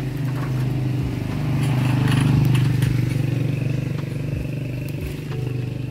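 An engine running steadily with an even low hum, growing louder to a peak a little past halfway and then easing off.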